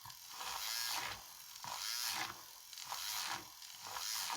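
Handheld electric mixer whirring in a cup of coffee, blending in melted butter and collagen powder to froth it into bulletproof coffee. The whir swells and drops about once a second.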